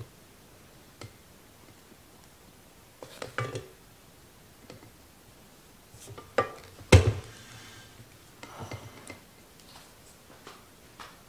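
Silicone spatula scraping and knocking against a stainless steel mixing bowl while stiff whipped cream is scooped out. The knocks come in a few short clusters, with the sharpest, loudest knock about seven seconds in.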